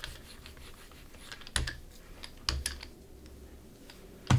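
Scattered light clicks and taps of a painting tool against a gel plate while paint is being mixed: about four sharp clicks over a faint low hum.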